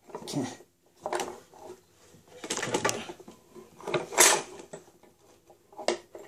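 A heavy old Columbian bench vise being hauled up and shifted about, giving a series of about five metal clanks and scrapes.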